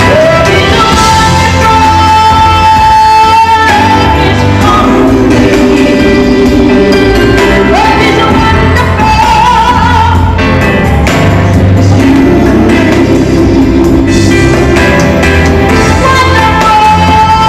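A woman singing a love song with instrumental backing, holding long sustained notes.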